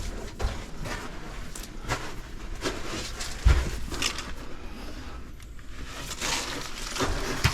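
Scattered rustling and light knocks, with one heavier thump about three and a half seconds in.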